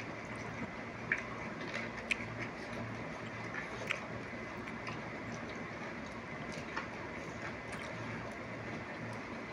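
A raw tomato being bitten and chewed: a few soft, wet clicks and squelches over a steady background hum.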